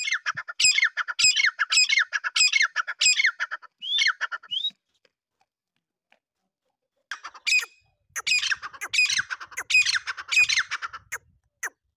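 Grey francolin calling: loud, harsh notes repeated nearly twice a second in two runs, broken by a pause of about two seconds in the middle.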